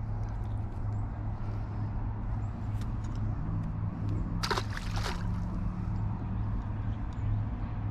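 A small perch thrown back into the lake, splashing once about halfway through, over a steady low hum.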